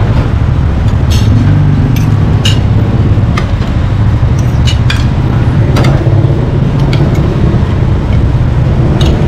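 Metal spoons and forks clinking on plates, about eight short clinks scattered over a loud, steady low rumble.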